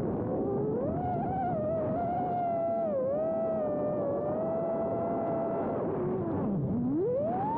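FPV quadcopter's brushless motors whining, the pitch following the throttle. The whine holds steady with a small dip about three seconds in, then falls to a low drone near the end as the throttle is chopped and climbs steeply as it is punched again.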